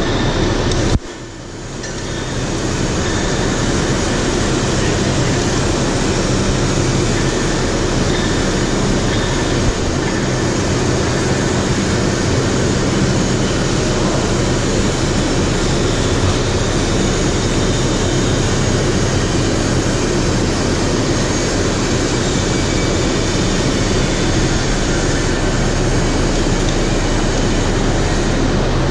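Steady industrial machinery rumble and low hum, the level dipping briefly about a second in and then returning.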